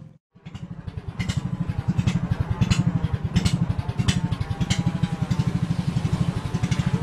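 Small river boat's engine running with a rapid, even chugging beat. It comes in after a brief gap at the start, with sharp ticks and rustles now and then.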